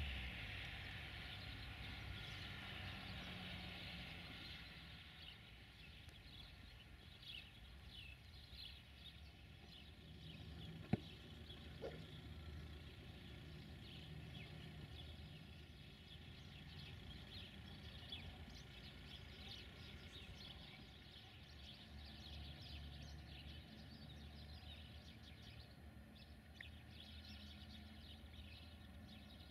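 Quiet outdoor ambience: a low rumble and hiss fade away over the first few seconds, then faint scattered small-bird chirps over a low distant hum, with one sharp click about eleven seconds in.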